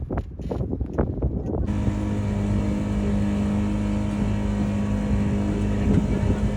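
Wind buffeting the microphone, then about two seconds in a steady engine drone starts abruptly and holds at an even pitch.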